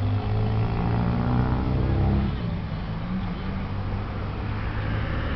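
A motor vehicle's engine running, a low hum whose pitch shifts about two seconds in, then steadier and quieter.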